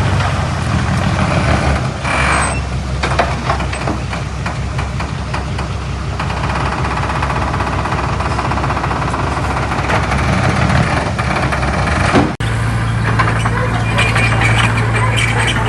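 Heavy diesel earthmoving machinery running under load, with steady engine hum and frequent metallic clatter. About twelve seconds in the sound cuts off abruptly and resumes as a steadier engine drone.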